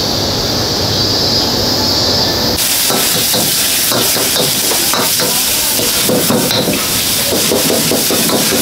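Wok stir-frying: a steady hiss for the first two and a half seconds, then rapid clanking and scraping of metal utensils in the wok over sizzling.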